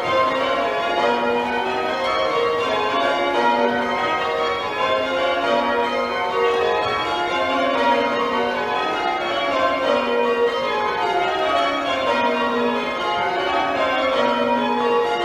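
Church bells being rung full circle in changes, a steady stream of strikes one bell after another in shifting descending sequences, heard from the ringing chamber below the bells.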